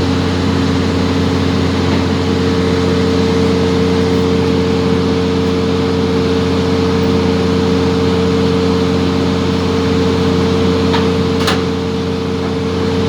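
Steady low machine hum made of several fixed tones, with a brief click about eleven and a half seconds in.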